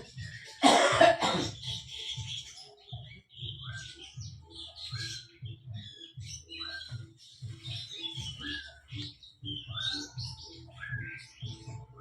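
A person coughs hard once, about a second in. After that a bird keeps chirping, short rising chirps about once a second, over soft low thumps.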